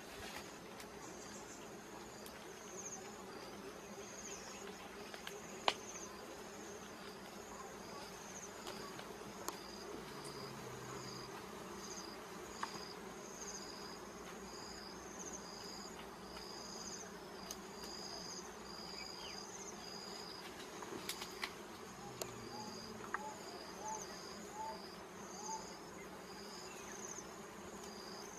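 Wild honeybees buzzing in a steady hum around their smoked comb. Over it, insect chirping pulses continuously at a high pitch, and a few sharp clicks sound, the loudest about six seconds in.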